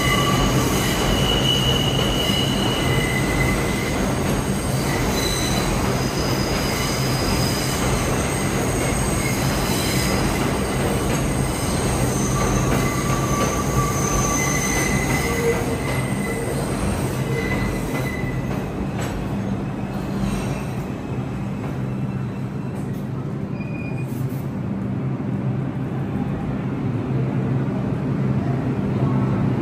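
New York City subway train's steel wheels squealing on the rails in several high, steady tones over the train's low running drone. The squeal fades after about eighteen seconds, leaving the lower running noise.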